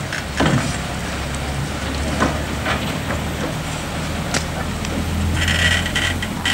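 VR Class Tk3 steam locomotive rolling slowly with a steady low rumble and occasional sharp clanks, joined near the end by a high squeal of several steady tones.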